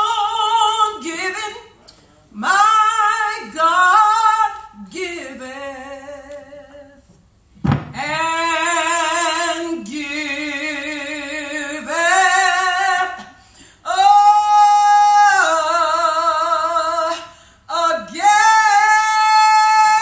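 A woman singing solo and unaccompanied in gospel style, drawing out long held notes with a wide vibrato in several phrases, with short breaths between them.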